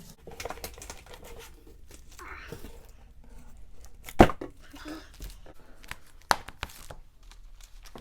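Packing materials being handled while a shipping box of comics is unpacked: irregular rustling, tearing and crinkling, with a sharp knock a little after four seconds and another after six.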